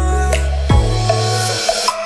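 Background music: an electronic beat with deep bass notes and drum hits.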